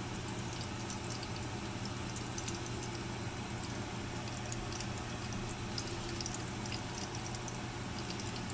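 Shrimp fritters frying in shallow oil in a pan: steady sizzling peppered with small crackles and pops, over a steady low hum.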